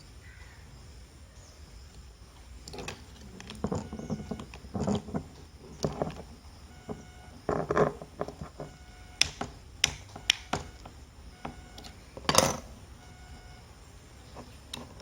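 Scattered, irregular clicks and knocks of hard plastic parts being handled as an MC4 solar connector is assembled and tightened, the loudest knock about twelve seconds in.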